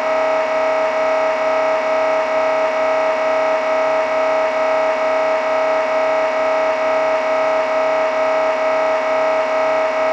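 MRI scanner running an imaging sequence, its gradient coils making a loud, steady, pitched buzz with an even, rapid pulsing.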